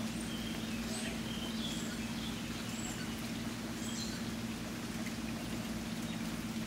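Steady rainfall with a few short, high bird chirps in the first few seconds and a steady low hum underneath.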